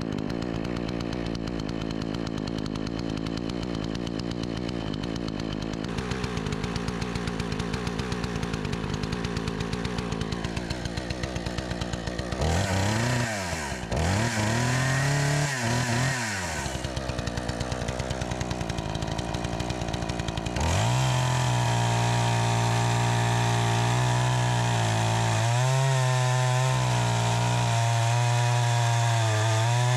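Troy-Bilt 20-inch two-stroke chainsaw with a freshly adjusted carburetor, running steadily at idle, then revved up and down twice about halfway through. For the last third it is held at a steady high rev.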